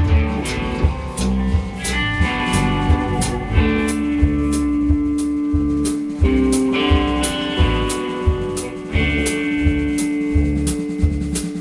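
Live band jam: electric guitar playing blues-style lines over a steady drum-kit beat with bass.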